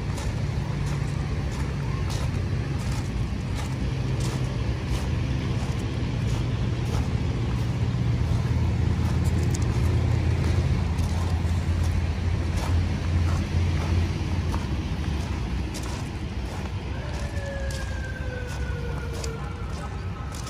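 A steady low engine drone, with footsteps on coarse dolomite pebbles ticking over it. Near the end a pitched tone slides downward.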